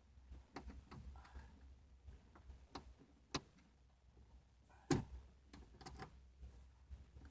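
Light scattered clicks and taps of hands handling a speaker and its mounting in a car door panel, with two louder sharp knocks about three and five seconds in.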